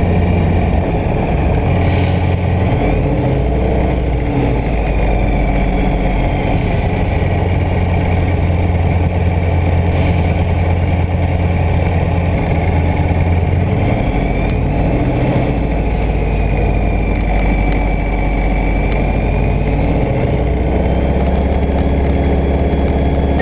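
Light aircraft's piston engine and propeller running steadily, a loud low drone whose pitch shifts slightly about 14 seconds in and again near 20 seconds.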